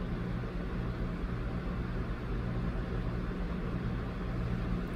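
Steady low hum with a constant hiss underneath: background room noise, with no distinct event.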